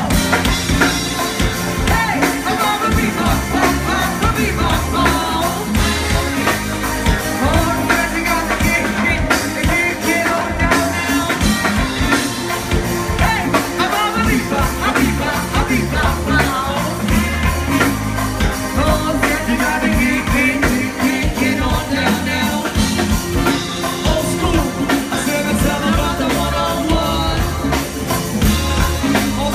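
Live go-go band playing, with a steady drum-and-bass beat and sung vocals over it.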